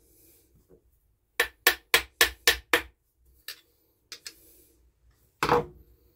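A screwdriver clicking and knocking against a small Ryobi chainsaw carburettor as it is taken apart by hand. A quick run of six sharp clicks comes about a second and a half in, then a few fainter taps, then a louder knock near the end.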